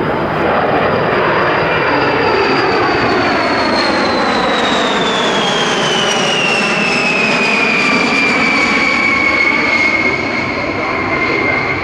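Eight Pratt & Whitney TF33 turbofan engines of a B-52H Stratofortress in a low flyby: a steady, loud jet roar with a high whine that falls in pitch between about four and nine seconds in as the bomber passes and moves away.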